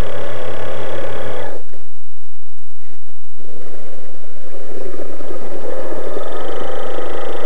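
Electric drive motor of a radio-controlled model submarine, heard from inside the hull as a loud whine with a low pulsing hum. It cuts out about a second and a half in and starts up again about two seconds later, building back up.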